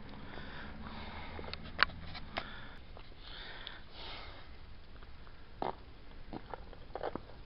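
Handling noise from a small camera being picked up and moved: a sharp click a couple of seconds in, several smaller clicks and knocks, and a short breathy hiss close to the microphone in the middle.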